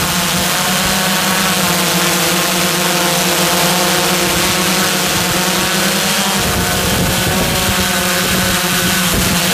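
Multirotor drone's propellers and motors running with a steady pitched whine, heard up close from the drone's own microphone; the pitch shifts slightly and a low rumble comes in about six seconds in.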